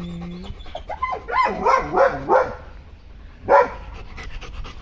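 German Shepherd dog vocalising in a string of rising and falling whines and yips, then one loud bark about three and a half seconds in, as it alerts at something it has spotted.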